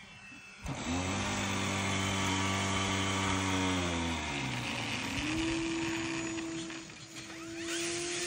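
RC model airplane's motor and propeller: a sudden burst of power just under a second in, held steady as a low drone, then dropping in pitch and fading around four seconds, followed by a steady higher whine as the plane taxis on the grass.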